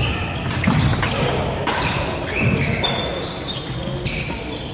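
Badminton rally: several sharp racket strikes on the shuttlecock about a second apart, with short high squeaks of court shoes on the wooden sports-hall floor.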